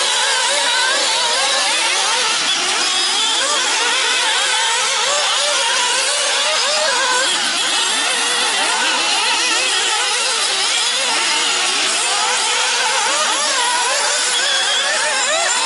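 Several nitro RC buggy engines racing together, a high-pitched buzzing whose pitch keeps rising and falling as the throttles open and close, the overlapping whines never stopping.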